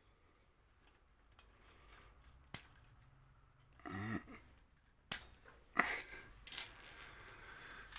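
Cutters snipping through plastic cable ties holding a motorcycle wiring harness: a light click about two and a half seconds in, then three sharp snips in the second half.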